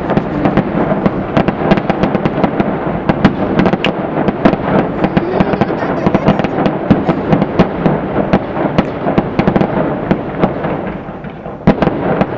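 Fireworks display: a dense, continuous run of bangs and crackles from bursting shells over a steady din, with a short lull and then one loud bang near the end.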